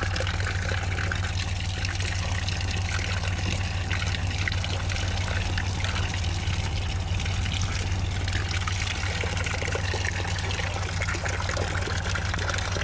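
Steady stream of livewell water pouring from the bass boat's outlet and splashing into a mesh weigh-in bag, with a constant low hum underneath.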